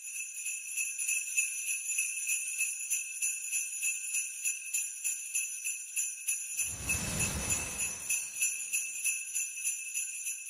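Jingle bells shaking in a steady, even rhythm, with a low whoosh swelling up and fading out about seven seconds in.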